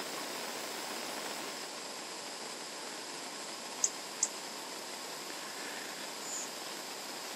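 Steady outdoor background hiss, with two short high-pitched chirps close together about four seconds in and a fainter one a couple of seconds later.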